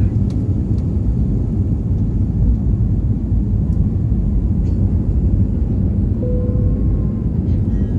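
Airbus A319 takeoff heard from inside the passenger cabin: a steady, loud low rumble of the jet engines at takeoff power and the roll along the runway, through rotation and lift-off.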